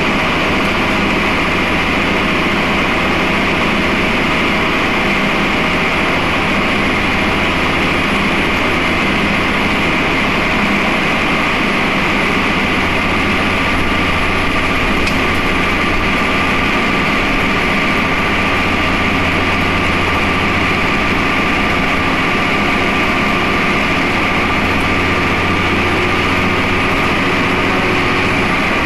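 The Cummins ISMe-335 10.8-litre inline-six diesel of a Transbus Trident III double-decker bus, running at a steady, unchanging speed with no revving.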